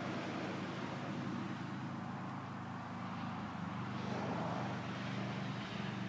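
A distant engine running steadily with a low hum that shifts up slightly about halfway through.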